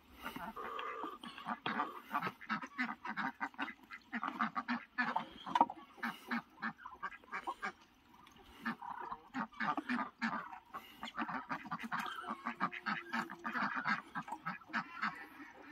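A flock of ducks quacking over and over, many short overlapping calls.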